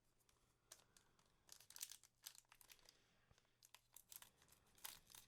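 Foil booster-pack wrapper being handled, giving quiet crinkles and rustles in a few short clusters.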